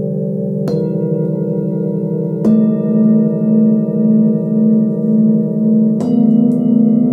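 Hand-forged Nepalese singing bowls, part of a set tuned to a seven-note scale, struck three times with a felt-covered mallet. The strikes fall about a second in, a couple of seconds later and near the end. Each rings on over the last, a different bowl and note each time, with a slow pulsing wobble in the deep hum.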